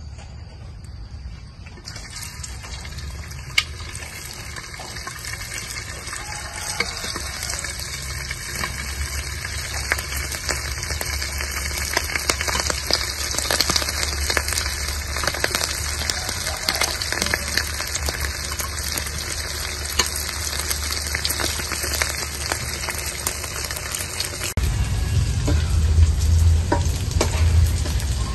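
Cakes of bean batter frying in hot oil in a steel wok: the oil starts sizzling about two seconds in and keeps up a steady sizzle with scattered crackles. Near the end the sizzle drops back and a low rumble comes in.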